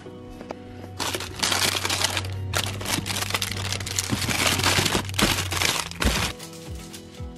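Cellophane-wrapped packs of nail files crinkling and rustling as they are handled in a plastic basket, starting about a second in and stopping near the end, over steady background music.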